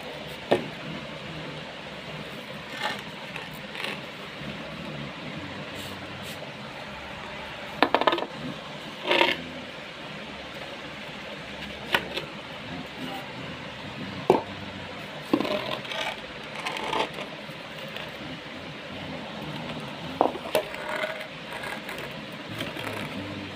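Wooden cricket bats being handled: a dozen or so sharp knocks and clacks at irregular intervals, some with a short ringing tone, over a steady background hiss.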